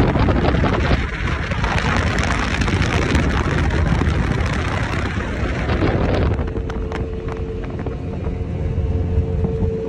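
2000 Mercury 125 hp oil-injected two-stroke outboard running with the boat under way, under a heavy rush of wind on the microphone. About six seconds in, the wind rush eases and a steady engine drone comes through clearly.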